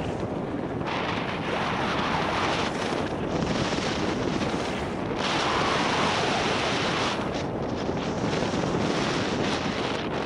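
Wind rushing over a helmet-mounted camera's microphone during a downhill ski run, mixed with the hiss and scrape of skis carving over packed snow. The noise is steady and rises and falls from turn to turn.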